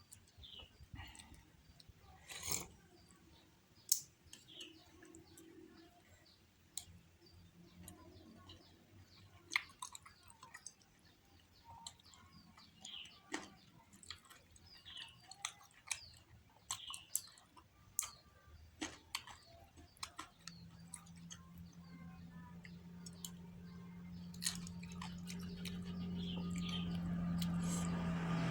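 Close-up eating sounds: chewing and sharp mouth clicks from someone eating curry instant noodles with tapioca meatballs (bakso aci) and bird's-eye chillies. Over the last several seconds a steady low engine hum grows louder.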